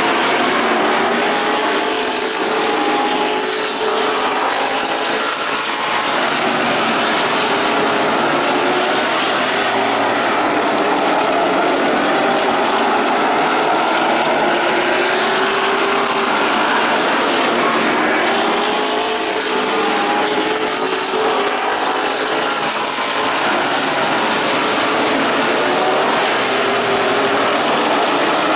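Several stock car engines racing around an oval track, loud and steady. The engine notes rise and fall again and again as the cars lap.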